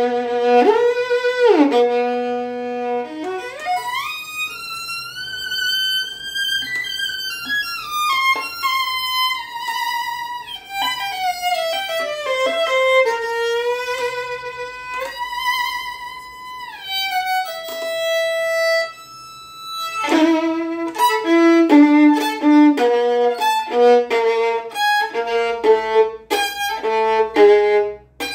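Solo violin played with the bow: slow, held notes with vibrato and sliding pitch, then, about twenty seconds in, a quicker run of short separate notes.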